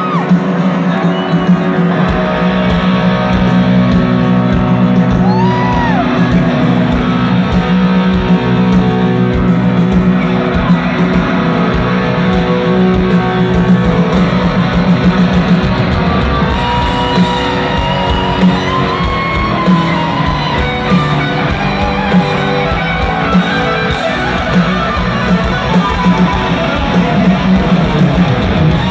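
Live rock band at concert volume: a lead electric guitar from a Les Paul-style guitar plays held, bending solo notes over grand piano, bass and drums. The low end of bass and drums comes in about two seconds in.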